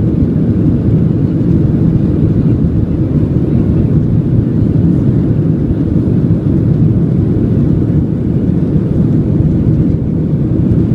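Aeroplane engines running steadily: a constant loud low rumble that does not rise or fall.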